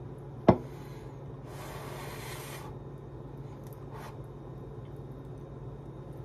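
A single sharp tap about half a second in, then about a second of scraping, over a low steady hum.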